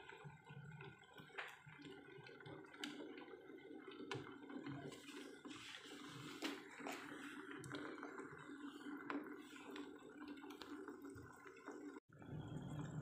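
Pot of coconut-milk vegetable stew (sayur lodeh) simmering back up to the boil: faint bubbling with small scattered pops as a metal ladle stirs through it.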